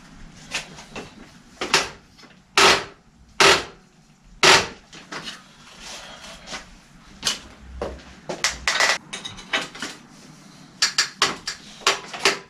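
Irregular knocks and clatter of hard objects being handled and set down, with three louder knocks a few seconds in and a run of quicker clicks near the end.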